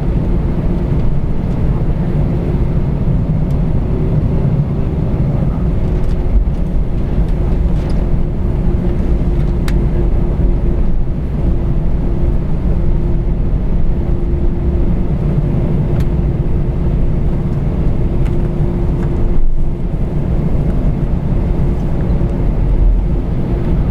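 Cabin noise inside an Airbus A321 taxiing: a steady low rumble of the jet engines at taxi power, with a constant hum tone running through it.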